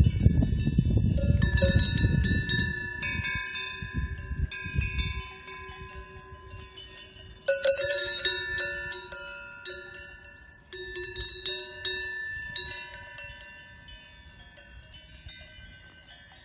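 Cowbells on grazing cattle clanking irregularly, each strike leaving a ringing tone. Louder bursts of clanking come about seven and a half and eleven seconds in, and the sound fades toward the end. A low rumble lies under the first five seconds.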